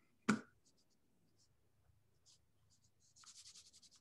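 Computer mouse being handled: a sharp click about a third of a second in, a few faint ticks, then near the end a fast, even run of small ticks from the scroll wheel being turned.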